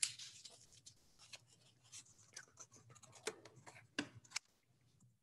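Quiet room tone with a low steady hum, broken by a sharp click at the start and a few faint clicks and rustles, the clearest about three and four seconds in.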